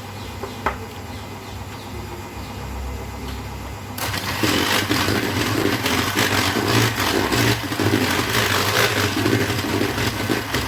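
A click near the start, then an electric mixer switched on about four seconds in, running loudly as it beats the whipped cream and condensed milk mixture.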